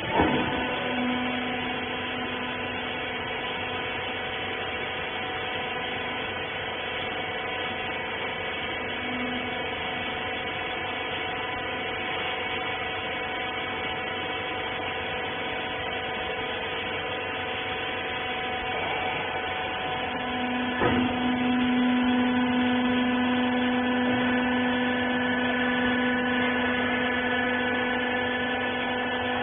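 A hydraulic rag baler running with a steady whining hum. There is a sharp clunk at the start and another about 21 seconds in, after which the hum grows louder and stays up.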